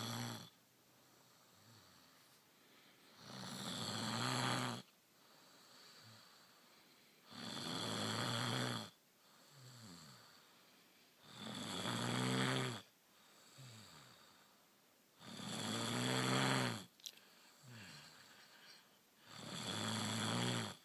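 A sleeping woman snoring: five loud snores about every four seconds, each lasting about a second and a half, with quiet breathing between them.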